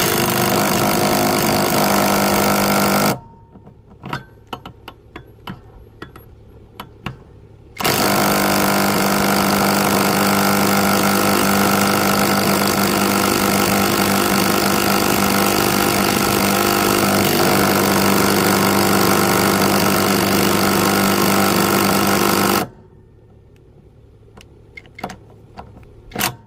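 Bauer brushless 3/8-inch impact wrench hammering on a lawnmower blade bolt in two long runs: about three seconds, then about fifteen seconds after a pause. Between and after the runs come a few light clicks and knocks of the tool and socket being handled.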